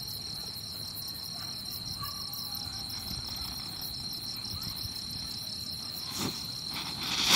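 Crickets chirping in a steady high-pitched trill. In the last moments a Cock Brand whistling rocket ignites, and a sudden loud rushing whistle starts to rise.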